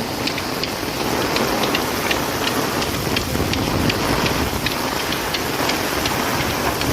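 Steady rain falling, with scattered light sharp taps.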